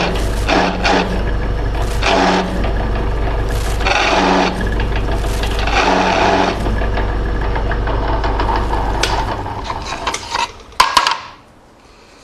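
Drill press running while a five-flute countersink bit chamfers holes in thin metal plate, cutting in short chattering bursts about every two seconds; the owner feels the drill is spinning too fast for the bit. Near the end the motor winds down and there are a couple of sharp knocks.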